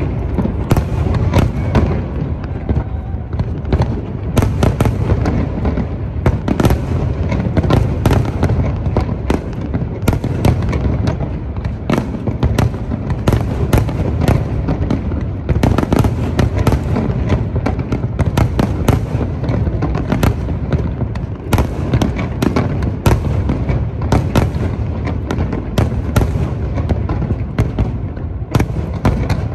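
Fireworks display: aerial shells bursting in rapid, overlapping bangs and crackles over a continuous low rumble, with no let-up.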